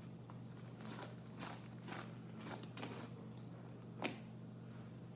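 Faint sticky clicks and crackles of homemade fluffy slime, made with shaving cream and a laundry-detergent activator, being squeezed and pulled in the hands, over a low steady hum.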